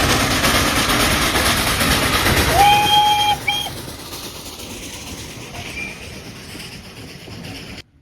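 Steam train running past with loud rumbling noise that fades away. About two and a half seconds in, its whistle sounds one note that slides up into pitch and holds for under a second, followed at once by a short toot. The sound cuts off suddenly near the end.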